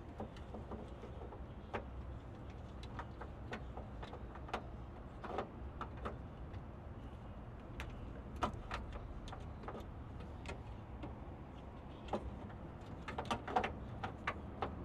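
Small irregular metallic clicks and taps as a replacement trunk lock is worked into its hole in a 1975 Ford Maverick's trunk lid, coming closer together near the end, over a faint steady low rumble.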